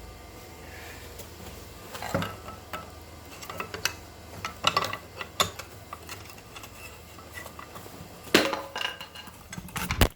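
Iron hinge parts clinking and knocking against each other as they are fitted together: irregular metallic clanks, the loudest about eight seconds in, over a faint steady low hum.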